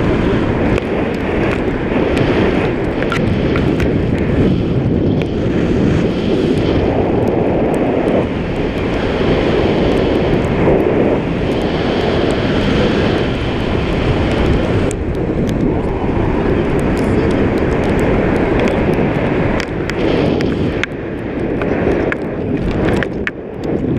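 Wind rushing over an action camera's microphone on a tandem paraglider in flight: a loud, steady wind rush, easing a little for a moment about twenty seconds in.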